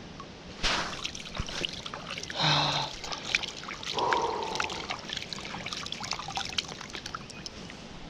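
Water trickling and splashing, with scattered small knocks and three louder splashy bursts about half a second, two and a half and four seconds in.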